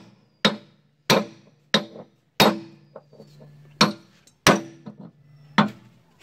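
Hammer blows on a drift held against a Sonalika DI-50 RX tractor's rear axle housing, knocking out the axle bearing. About seven sharp strikes, each with a brief metallic ring, and a short pause near the middle.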